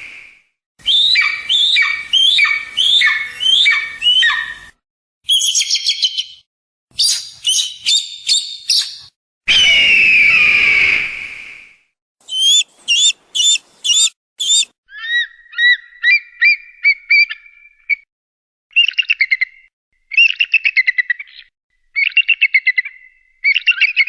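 Eagle calls edited one after another: runs of high, falling chirps, quick piping chatters and trills, and one long, loud scream about ten seconds in, with short silent gaps between the clips.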